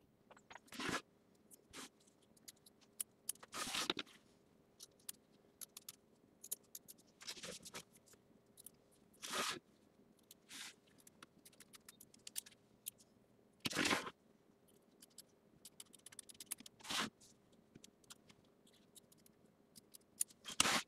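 Scissors trimming away excess appliqué fabric beside a just-stitched tack-down line on a hooped embroidery block, a series of irregular short snips and cuts.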